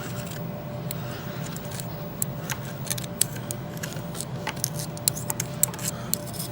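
Irregular small metallic clicks and scrapes of hand tools working in an embroidery machine head, clearing loose balls from a failed take-up lever drive bearing, over a steady low hum.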